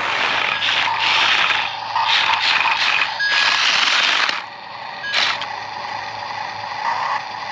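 Small rocks and dirt scraping and rattling as a toy RC excavator's bucket digs into them and loads them, in a run of loud bursts over the first four seconds or so and one short burst about five seconds in.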